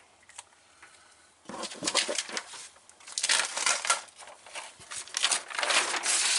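A paper mounting template being pulled off a wall, the paper crinkling and its tape peeling away in three rustling bursts after a quiet first second and a half.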